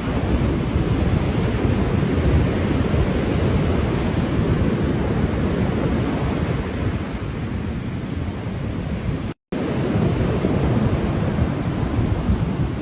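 Ocean surf washing in a continuous rush with a deep rumble. The sound cuts out completely for a split second about nine seconds in, then resumes.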